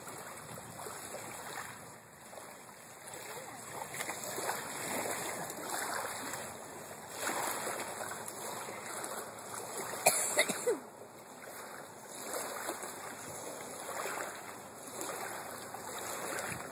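Small waves lapping on a pebble shore, the wash swelling and fading every couple of seconds. About ten seconds in, a brief cluster of sharp, loud clicks stands out.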